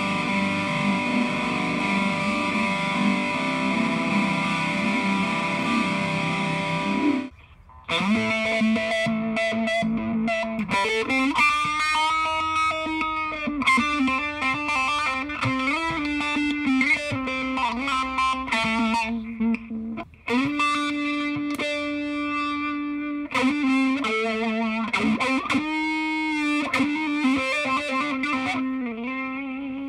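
Electric guitar played through a fuzz pedal and an EarthQuaker Devices Spatial Delivery envelope filter. The first seven seconds are one held fuzzed chord with the fuzz ahead of the filter. After a short break, notes are played with the filter ahead of the fuzz, and the filter sweeps each one.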